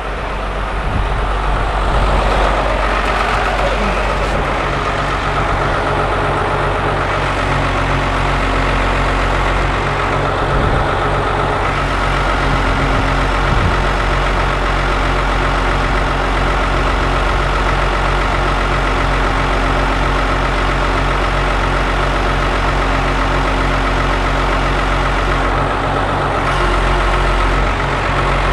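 A heavy engine idling steadily with an even low pulse.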